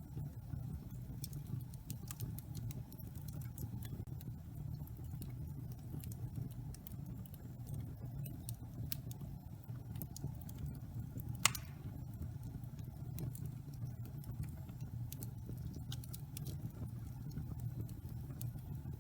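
Wood fire burning in a fireplace: a steady low rumble of flame with scattered small crackles, and one loud pop a little past halfway.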